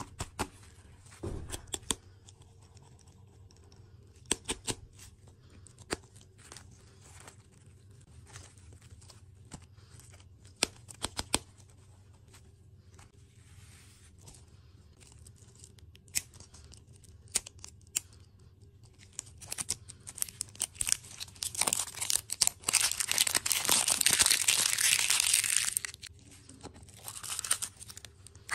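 Hands handling hard plastic toy-surprise lollipop balls, with scattered sharp clicks and taps. About two-thirds of the way in comes several seconds of loud crinkling and tearing as the printed wrapper is peeled off a ball, then a few clicks from the plastic capsule near the end.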